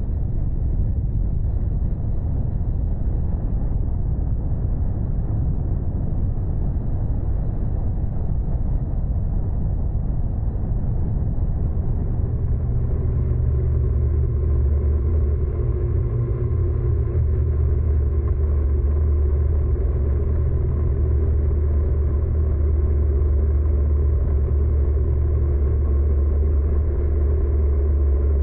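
Steady low engine rumble. About twelve seconds in, a steady droning hum with several fixed tones rises over it and holds.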